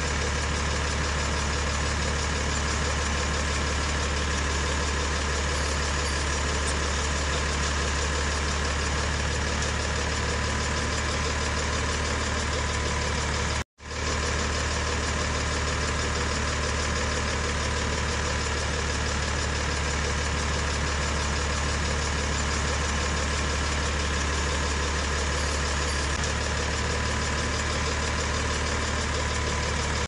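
Engine running steadily with a deep hum and no change in pace, broken by a split-second dropout about fourteen seconds in.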